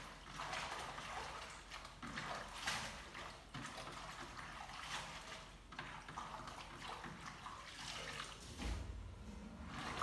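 Hands swishing and splashing in a plastic basin of water while washing leafy greens, in irregular strokes, with a dull knock near the end.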